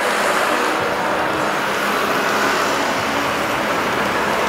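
Boeing 777-300ER's GE90 jet engines giving a steady, loud rushing noise as the airliner rolls out along the runway after touchdown.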